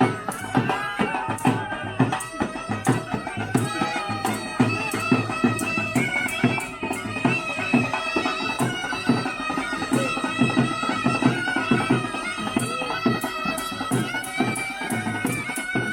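A snake charmer's been (pungi), a reed pipe, playing a sustained, reedy melody, with drums beating a fast, steady rhythm.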